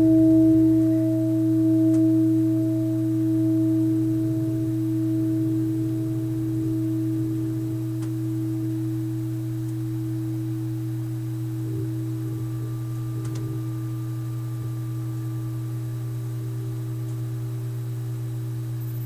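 Nepalese heart chakra singing bowl, tuned to G, held in a steady sustained singing tone with an overtone above it. For the first several seconds the tone swells and ebbs slowly, then it settles to an even hum.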